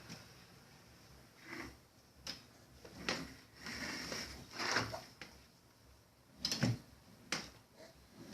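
Irregular knocks and bumps of hard objects being handled, like a drawer or small door being pushed and banged, about eight in all with the loudest near the end.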